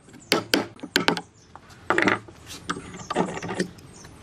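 Hand-tool work on wood: a few sharp knocks in the first second, then several rasping, ratchet-like strokes about every half second.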